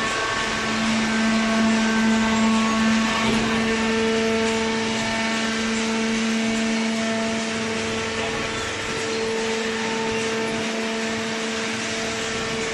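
Hydraulic cardboard baler's motor and pump running, a steady hum with a constant whine over machine noise.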